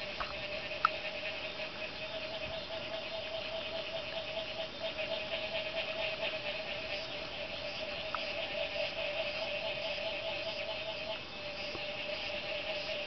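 A night chorus of frogs and insects: a fast, pulsing high trill over a steady lower hum, with a few short chirps, the loudest about a second in.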